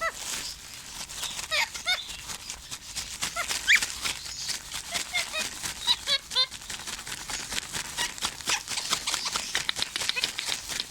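Pet parrot giving short squeaky chirps and calls at irregular intervals, with many quick clicks between them.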